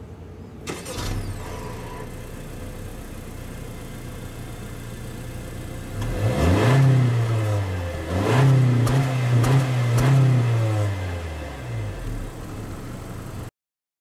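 2016 Honda Civic's 1.5-litre turbocharged four-cylinder engine, heard at the dual exhaust outlets. It idles steadily, then is revved twice, about six and eight seconds in, the second rev held for about two seconds, before falling back to idle. The sound cuts off suddenly near the end.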